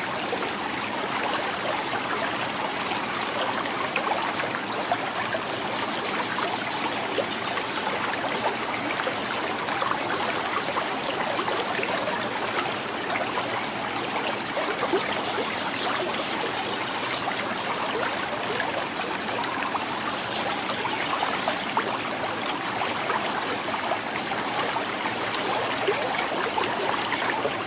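Shallow river or stream flowing steadily, water gurgling and splashing over stones.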